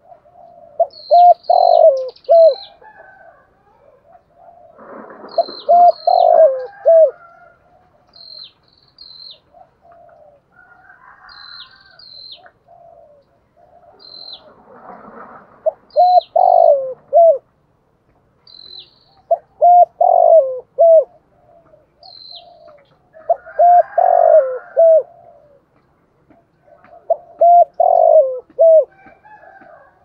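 Spotted dove cooing in short phrases of three or four low coos, repeated every few seconds. A small bird chirps high in the background.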